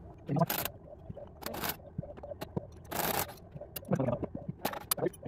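Spanner and cordless impact gun on the 14 mm bolts of a Toyota Hilux rear tailshaft flange: about four short rasping bursts among clinks and scrapes of metal.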